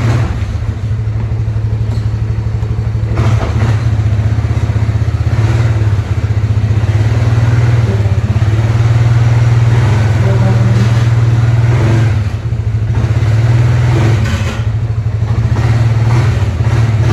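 Engine of the vehicle towing a truck cab, running steadily at low revs with a deep, even throb, getting a little louder after about three seconds.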